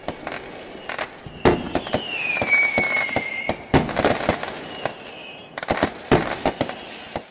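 Fireworks going off: a string of sharp bangs and crackles, with a whistling tone that glides down and then holds for about a second and a half, starting about two seconds in.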